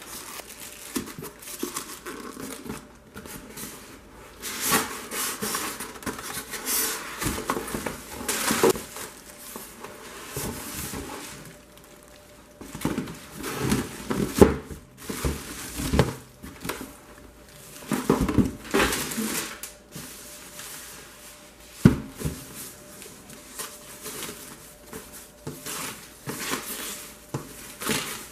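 Air fryer packaging being handled: irregular rustling and crinkling of plastic bags and foam wrap, polystyrene and cardboard rubbing and scraping, with one sharp knock about three-quarters of the way through.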